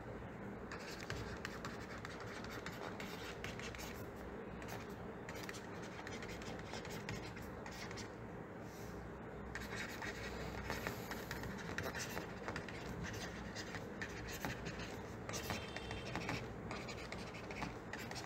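Faint, irregular scratching and tapping of a stylus writing by hand on a pen tablet.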